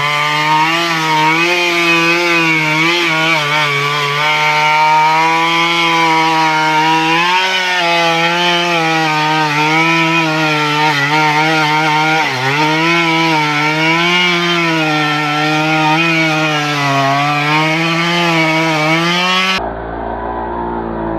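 Stihl two-stroke chainsaw running at high revs while cutting teak, its pitch wavering and dipping as the chain bites into the wood. It cuts off abruptly near the end.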